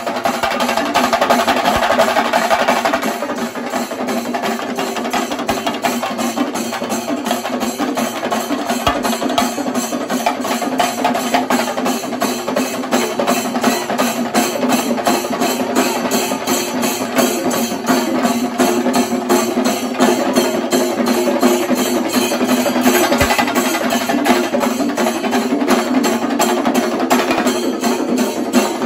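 Chenda drums beaten with sticks together with ilathalam hand cymbals, a loud, fast and unbroken festival rhythm. The playing is a little louder and brighter for the first three seconds, then settles into a steady driving beat.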